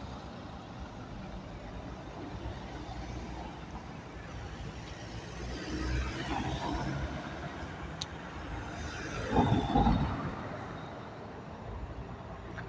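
Street traffic with city buses and cars running: a steady low engine and tyre rumble that swells as vehicles approach. A louder vehicle passes close by about three quarters of the way through, just after a brief click.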